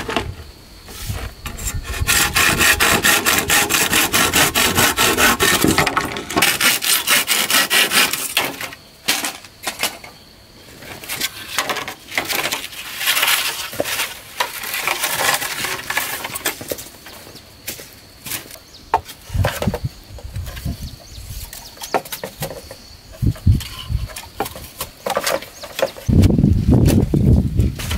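Hand work on wood: a run of quick, even rasping strokes, then scattered knocks and clicks. A loud low noise comes in near the end.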